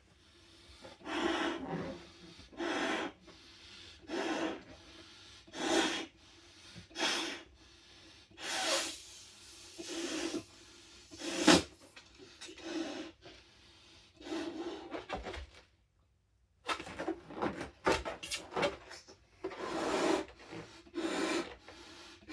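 A latex balloon being blown up by mouth: a breath is pushed into it about every one and a half seconds, with the rubber rubbing and squeaking. There is a single sharp snap about halfway through.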